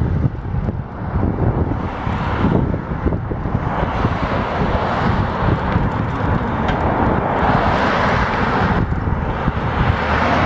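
Wind rumbling on the microphone of a camera riding on a moving bicycle, with road noise from passing traffic swelling from about four seconds in and again near the end.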